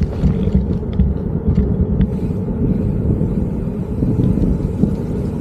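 Steady low rumble of wind buffeting the microphone during a bicycle ride, mixed with road noise.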